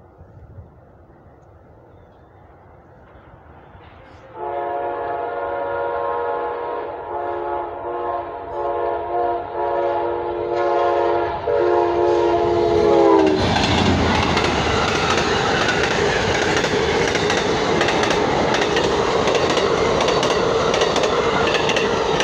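Amtrak passenger train approaching and sounding its horn in a long blast followed by several shorter ones; about thirteen seconds in the horn drops in pitch as the locomotive goes by. Then the train rushes past close by, its wheels clicking over the rail joints.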